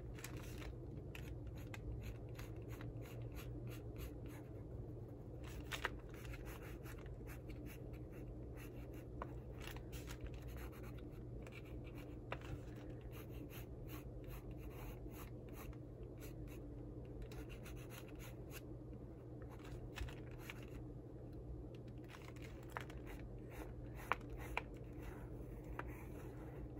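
Wooden graphite pencil scratching on paper in many short strokes as a sketch is drawn, with a few sharper ticks of the pencil against the paper. A steady low hum runs underneath.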